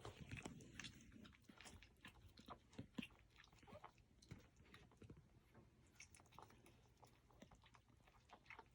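Faint, irregular wet mouth clicks and smacks from a Cavalier King Charles spaniel and her newborn puppies.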